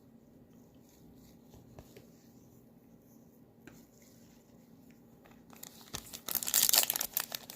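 Trading-card pack wrapper being torn open and crinkled. It is loud and crackling from about five and a half seconds in, after faint clicks of cards being handled.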